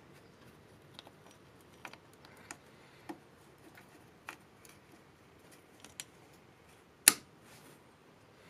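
Scattered small clicks and taps of locking pliers (mole grips) with plastic pads being worked onto a rubber brake hose to clamp it shut, with one louder sharp click about seven seconds in.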